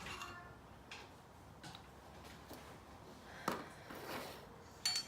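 Small clicks and knocks of measuring spoons and ingredient containers being handled, with a sharper knock about three and a half seconds in and a short ringing clink near the end.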